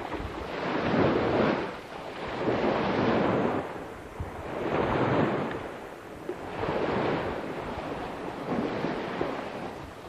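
Surf washing ashore on a small tropical caye, mixed with wind rumbling on the camcorder microphone; the rush swells and fades about every two seconds.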